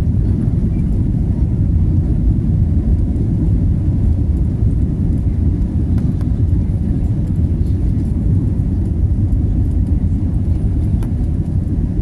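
Airliner on its takeoff from Manila's airport: a steady, loud low rumble of jet engines and rushing air that holds even throughout.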